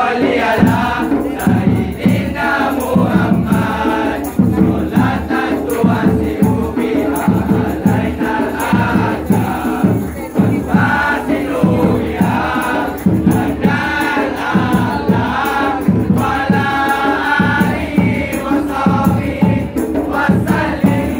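Kompang troupe of young men singing together in unison, a chant-like song carried by a steady rhythm.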